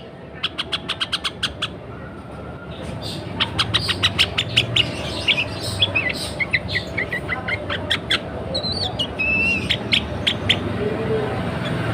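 Sooty-headed bulbul (kutilang) calling: a quick run of short, sharp chirps, then after a pause a longer run of chirps mixed with slurred, falling notes. It is the call of a female in breeding condition, used as a lure to get males singing.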